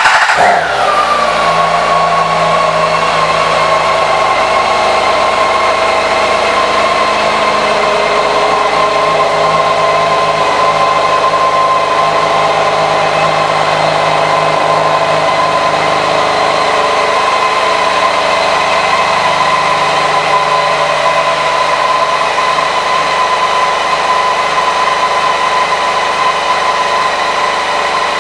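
A 2014 BMW K1600 GTL's inline-six engine starting up. Its revs fall quickly in the first second or so, then it idles steadily.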